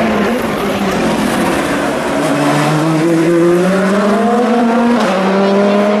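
Race car accelerating hard, its engine pitch rising steadily, with a sharp drop in pitch about five seconds in as it shifts up a gear, then climbing again.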